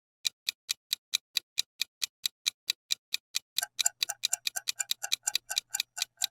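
Countdown-timer sound effect of a clock ticking, about four to five ticks a second, which come quicker and closer together a little past halfway.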